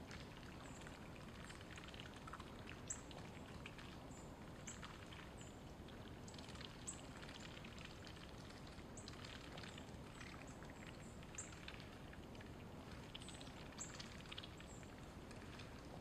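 Mallard ducks dabbling in shallow water: a faint, steady crackle of wet clicks and soft splashes as their bills sift the water and mud. Short high chirps stand out every second or two.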